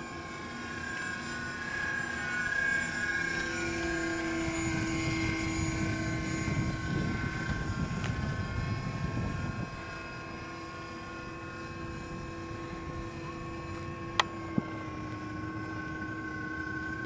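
Super Dimona 2400 RC model airplane flying overhead, its motor and propeller droning steadily. The tone bends in pitch and grows louder for the first several seconds, then drops back to a quieter drone about ten seconds in. Two sharp clicks come about fourteen seconds in.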